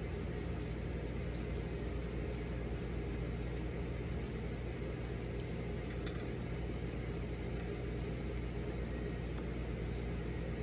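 Steady low background hum, even and unchanging, with a couple of faint ticks.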